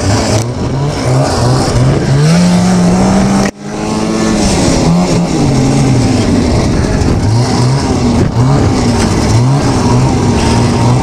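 Yamaha Enticer snowmobile's two-stroke engine revving while being ridden; its pitch climbs and falls with the throttle. The sound drops out for an instant about three and a half seconds in, then picks straight back up.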